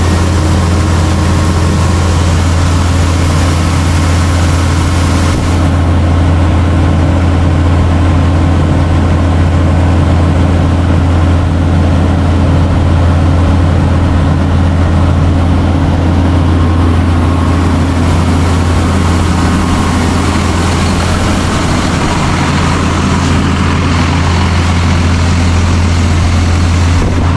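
Claas Mega combine harvester's diesel engine running steadily as it unloads shelled corn into a trailer: a loud, deep, even drone.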